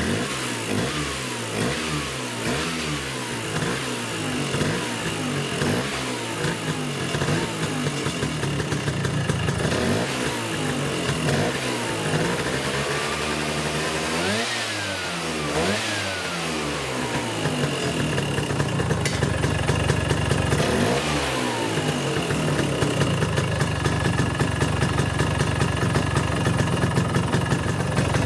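Vespa's Polini 221 two-stroke engine running just after a kick start. The throttle is blipped up and down many times through the first half, with a bigger rev around the middle, and the engine then settles into a steady idle.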